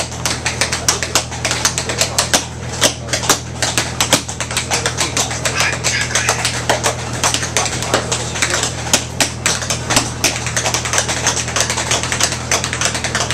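Interior of a moving passenger railcar: dense, irregular clicking and rattling, several clicks a second, over a steady low rumble.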